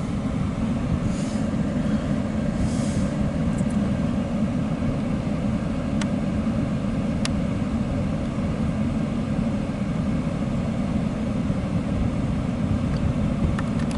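Loaded coal hopper cars of a long freight train rolling past with a steady low rumble, with two sharp clicks midway.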